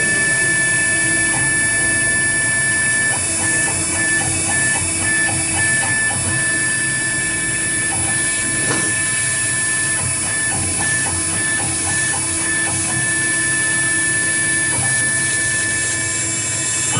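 AccTek AKM6090 CNC router running: a steady high spindle whine with a motor tone that cuts out and resumes in short gaps as the axes move, over faint ticking.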